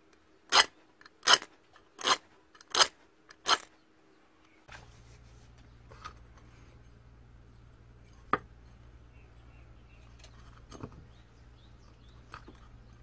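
Five short, loud rasping strokes about 0.7 s apart as the wrapped grip of a homemade knife is worked by hand. Then a low steady hum with a few light taps and one sharp click about eight seconds in, as small items are handled on a wooden table.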